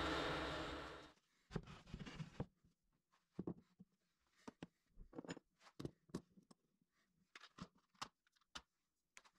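CNC router spindle running, cutting off about a second in; then a scatter of light clicks and knocks as tools are set into the pockets of an MDF drawer-organizer tray.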